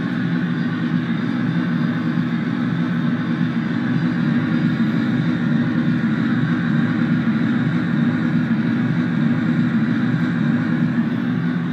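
DIY analog/digital modular synthesizer playing a dense, steady, rumbling noise texture, its drum sequence blurred into a continuous drone with no separate hits.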